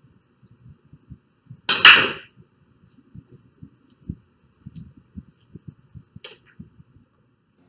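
Pool break in 10-ball: the cue ball smashes into the racked balls about two seconds in, a loud sharp clatter of ball on ball. Softer knocks follow as the balls spread over the table, with one sharper click near the end.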